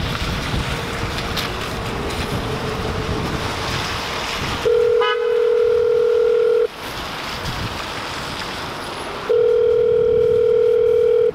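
Telephone ringback tone from a free-call street kiosk's speaker: two rings, each about two seconds long, starting about four and a half seconds in. Before the first ring there is steady traffic and wind noise.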